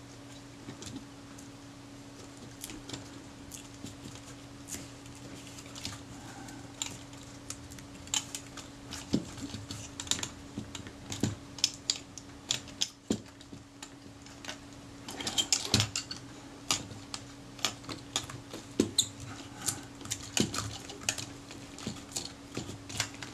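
Fingers pressing and smoothing glued leather covering onto the metal body of a Rolleiflex Automat TLR, with the camera handled and shifted on the bench: irregular small clicks and taps, some in quick clusters.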